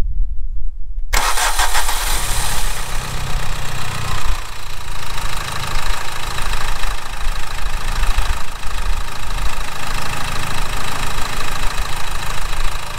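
Subaru Outback's 2.0-litre boxer diesel engine idling warm in the open engine bay; a loud, even rushing noise sets in suddenly about a second in and holds steady.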